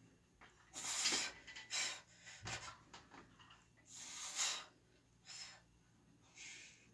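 Forceful breathing from the strain of heavy bench press reps: a run of sharp, hissing breaths, each a second or less long, the longest about four seconds in.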